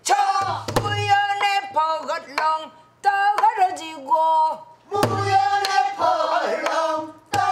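A woman singing pansori in a strong voice, long held notes that waver and bend, in three phrases that break off about three and five seconds in. Sharp knocks and low thuds from strokes on a buk barrel drum fall between and under the phrases.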